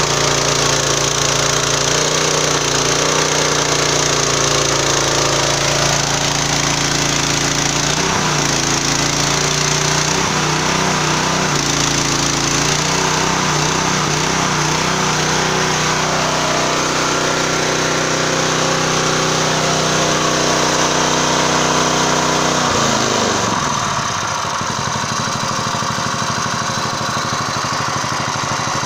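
A 9.6-horsepower single-cylinder petrol engine runs steadily at high speed, driving two car alternators under a welding load, with the hiss and crackle of an electric arc welding sheet metal. About 23 seconds in, the engine speed drops and it runs slower and quieter.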